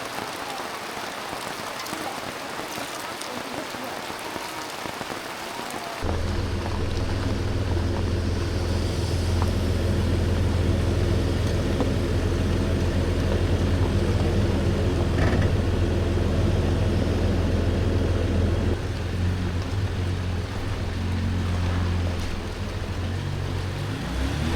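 Steady rain falling. About six seconds in, a diesel Jeep Gladiator's engine comes in over the rain, running with a steady low drone. Its pitch starts to rise right at the end.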